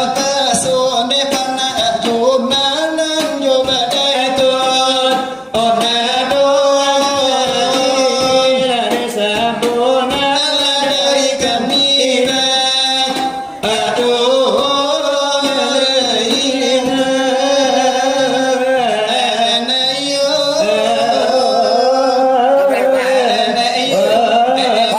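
Selawat dulang: voices chanting a long melismatic devotional song in Minangkabau over a rhythmic beat struck with the fingers on a brass tray (dulang). The singing breaks off briefly twice, about five and a half and thirteen and a half seconds in.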